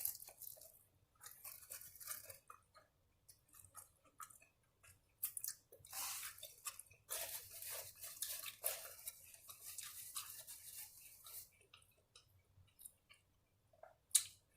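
A person chewing a taco close to the microphone: faint, irregular bunches of chewing and mouth noises with short pauses between them.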